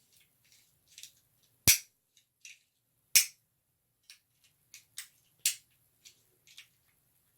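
Metal clicks and clacks of an antique iron padlock being handled as its shackle is fitted back and snapped shut: two sharp loud clacks, the second about a second and a half after the first, with lighter clicks between and after.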